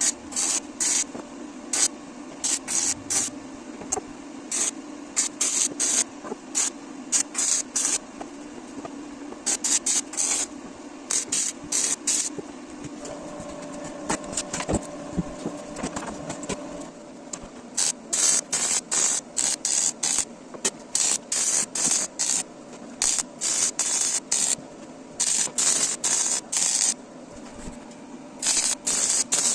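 Repeated short bursts of compressed-air hiss, about one or two a second, over a steady motor hum.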